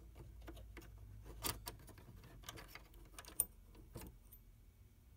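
Light irregular clicks and taps of a small metal retaining plate being worked loose and lifted out of a Star SP700 receipt printer's mechanism, with the sharpest click about three and a half seconds in.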